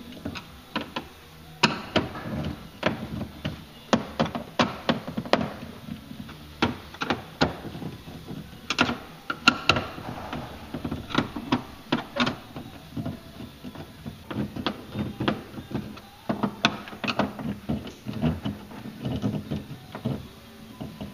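Screws being tightened by hand with a screwdriver into a throttle pedal filler plate: irregular clicks, taps and knocks of the tool and hardware, spread through the whole stretch.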